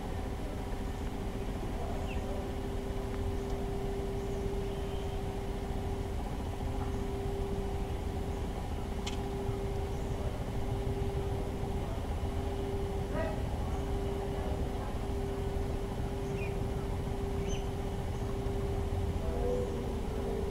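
Steady low rumble with a constant mechanical hum, like distant traffic or machinery, with a few faint, short, high chirps and a single click about nine seconds in.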